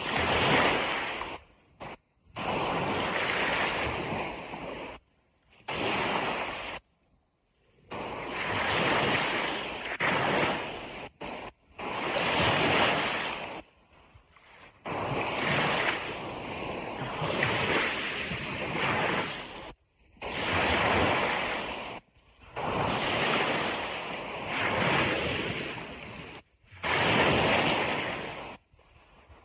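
Ocean surf washing onto a beach: a rushing noise that swells and falls back in surges every two to three seconds, with sudden brief gaps of near silence between some of them.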